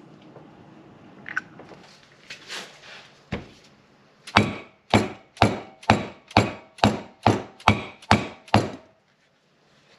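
Hammer blows on a seal driver, tapping the grease seal into a disc brake rotor hub: a single knock about three seconds in, then about ten even strikes, roughly two a second, which stop about a second and a half before the end.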